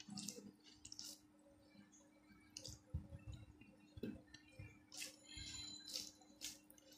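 Fingers mashing and mixing rice with curry gravy on a plate: soft, irregular wet squishes and small clicks, with a faint steady hum underneath.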